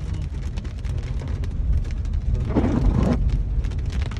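Rain pattering on a car's roof and windshield, heard from inside the cabin over a low, steady road and engine rumble as the car drives slowly. A louder swish comes about two and a half seconds in.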